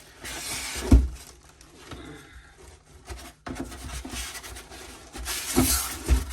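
Packaging being unpacked from a box: rustling and scraping with a sharp knock about a second in, then more rustling and a couple of knocks near the end.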